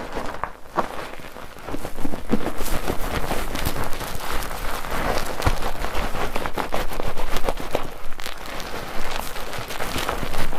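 Wet squishing and fine crackling of soap lather being worked up with a bar of soap in a mesh foaming net, the bubbles popping in a dense patter. Quieter at first, growing fuller about two seconds in.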